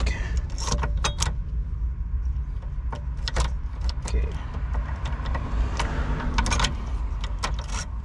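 Irregular sharp clicks and rattles of plastic connectors, wiring and the ignition lock cylinder housing being handled on an opened steering column, over a steady low rumble.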